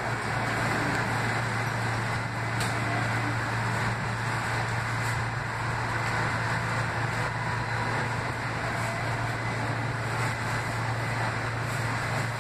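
Cabin noise of a Kinki Sharyo light rail vehicle under way: a steady low hum over an even rolling rumble, with a few faint clicks.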